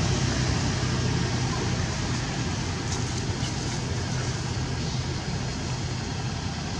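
Steady outdoor background rumble and hiss of distant road traffic, with a constant low hum.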